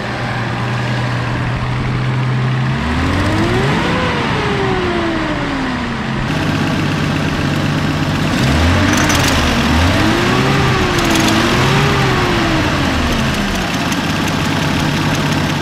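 Datsun 280ZX's 2.8-litre straight-six idling steadily, then revved up and back down once, and a few seconds later revved several times in quick succession. It runs on all six cylinders now that three failed original injectors have been replaced, and it sounds way better.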